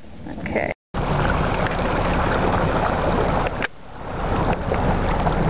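Steady rushing noise of wind and water aboard a small sailboat, heavy with low rumble. It breaks off in a brief dead silence about a second in and dips again past the middle before swelling back.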